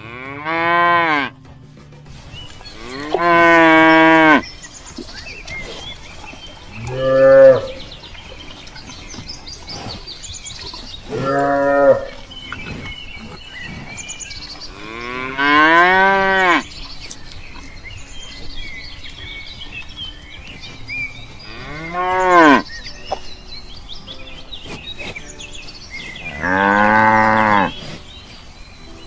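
Cow mooing: seven long moos a few seconds apart, each rising and then falling in pitch.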